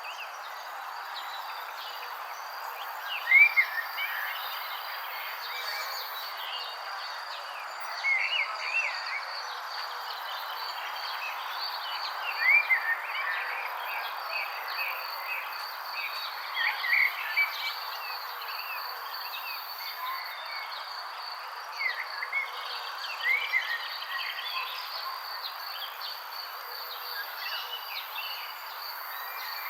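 Birds chirping in short phrases every few seconds over a steady high-pitched drone and a constant hiss.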